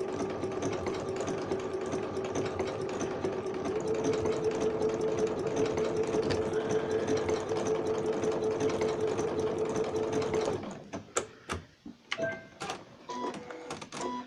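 Electric sewing machine stitching blanket stitch round an appliqué. It runs steadily, its hum stepping up slightly in pitch about four seconds in, and stops about ten and a half seconds in, followed by a few light clicks and taps.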